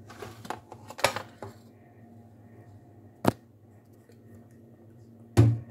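A kitchen knife and scraper scraping and tapping on a steel plate and tray as chopped garlic is spread out to dry: a run of small clicks and scrapes early, then a sharp knock about three seconds in and another near the end.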